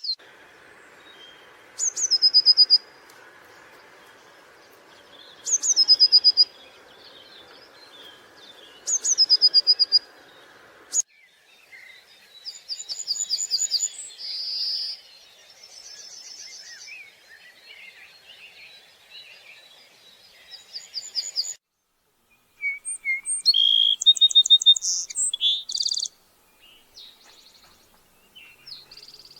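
Small songbirds singing and chirping: one high, falling, rapidly pulsed phrase repeated three times about every three and a half seconds, then varied chirps and trills, loudest near the end. A steady rush of running water lies under the first third and cuts off suddenly.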